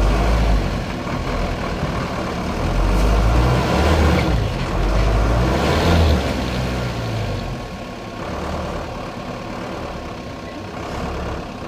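Off-road 4x4's engine running under load as it drives over rough, muddy ground. It is louder from about three to six seconds in, then eases off.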